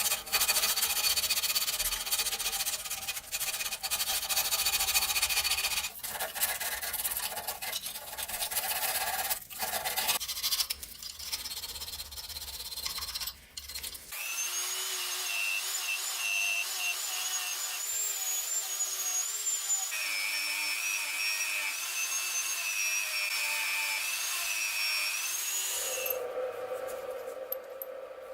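Hand and power tool work on a rusty cast-metal vise. First comes rough scraping and rubbing with knocks. About halfway in, a power tool's whine starts, wavering in pitch as it works, and a lower steady hum takes over near the end.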